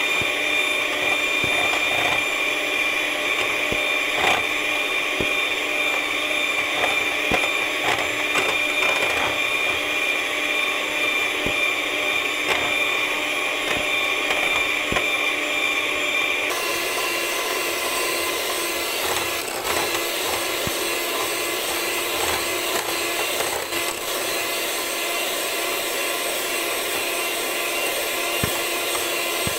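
Electric hand mixer running steadily, its beaters whipping heavy cream, with scattered clicks. The motor's tone changes abruptly about halfway through.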